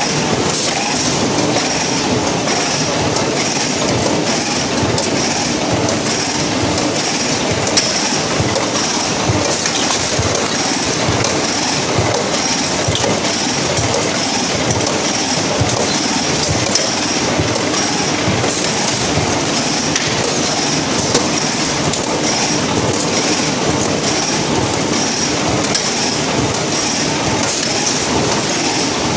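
Curioni 2800NT inline carton machine running, its servo-driven stitching section and output stacker making a continuous rapid mechanical clatter. A steady high whine runs through it.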